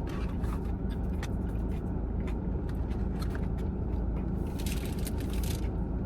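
Crunching and chewing of a crispy potato-coated Korean corn dog, with short crackly clicks and a denser stretch of crunching about four and a half seconds in, over a steady low hum.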